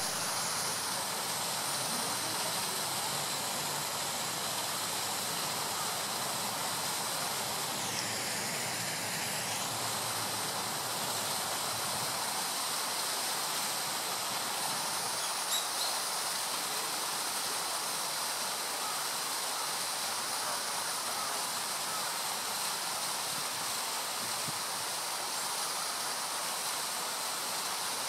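Steady, even hiss of outdoor background noise, with a brief dip in its upper part around eight to ten seconds in.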